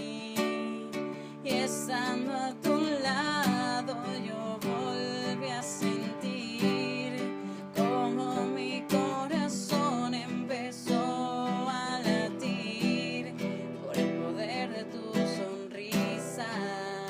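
Acoustic guitar strummed in a steady rhythm, recorded on a phone, with a wordless vocal melody gliding over it at times.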